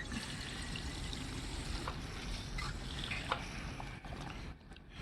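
Two-stroke gas-and-oil mix pouring from a gas can into a chainsaw's fuel tank, a steady trickle that stops about four and a half seconds in.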